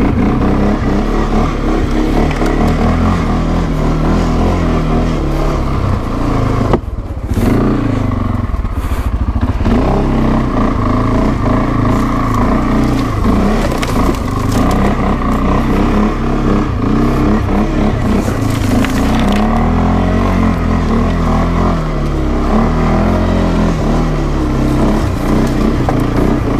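CFMoto 520L ATV's single-cylinder engine running under load off-road, the revs rising and falling continuously, with a brief drop in sound about seven seconds in.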